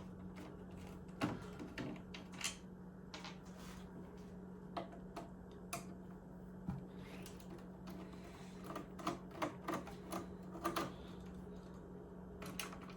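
Makeshift T15 Torx driver working a screw in a 1984 Macintosh 128's plastic case: irregular small clicks and ticks of the bit and screw, busier near the end, over a steady low hum.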